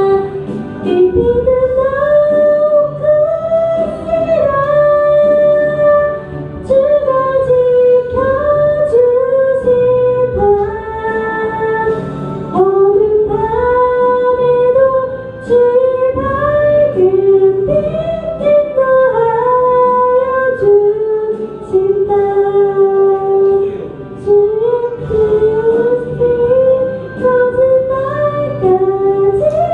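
A woman singing a slow gospel song, a single melody line in long held phrases over a soft low accompaniment.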